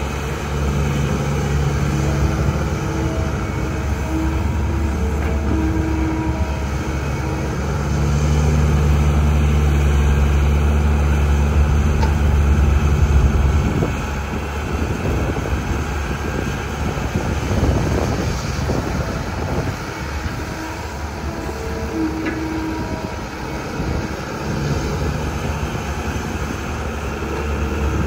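Caterpillar tracked excavator's diesel engine running under load as the machine swings and digs, with a whine that comes and goes. The engine is loudest for several seconds before easing off about halfway through.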